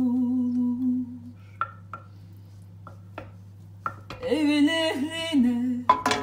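A woman singing a Turkish folk song unaccompanied holds a long note, breaks off, and takes up the next line about four seconds in. In the pause, a wooden spoon stirring rice and orzo in a stainless steel pan gives a few light clicks and taps, with one sharper click near the end.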